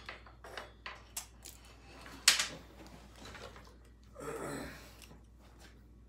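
Small metal clicks and taps of a hand tool on a chainsaw carburetor as its metering side is opened up, with one sharper click about two seconds in.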